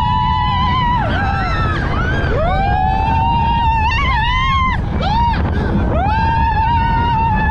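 Roller coaster riders screaming: long, high-pitched held screams, one after another with a short one between, each rising at its start. A rush of wind on the microphone runs underneath.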